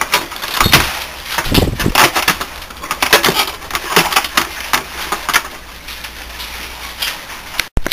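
Irregular clicks and rustles of wires and plastic connectors being handled inside an inverter air conditioner's control box, with a few low thumps about a second in.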